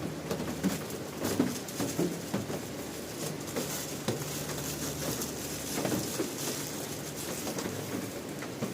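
Rain pattering steadily on a shelter roof, with a few light knocks mixed in.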